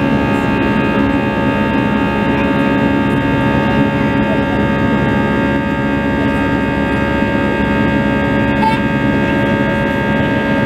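Jet airliner cabin noise from a seat by the wing, with the engines at climb power: a steady, loud drone with several steady humming and whining tones layered over rushing air.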